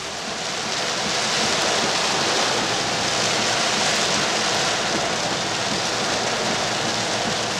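Heavy rain hissing on the windscreen and roof of a Holden Rodeo 4WD, heard from inside the cab as it drives along wet beach sand. The downpour builds over the first second or so, then holds steady.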